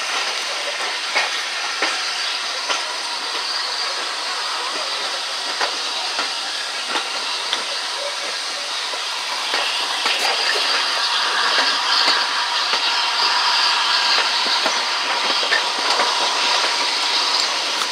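Steam-hauled passenger train running, heard from an open carriage window: a steady rushing hiss with scattered clicks of the wheels over the rail joints. It gets louder about halfway through.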